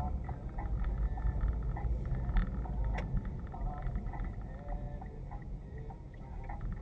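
Car on the move: a steady low engine and road rumble, with short squeaks and a few sharp clicks over it, the sharpest about three seconds in.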